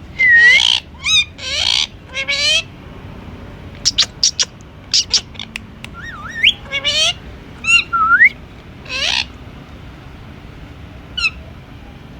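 Indian ringneck parakeet calling in a string of separate calls with short pauses between them: harsh squawks at first, a quick run of sharp chirps, a few rising whistles, then a last harsh call and a faint one near the end.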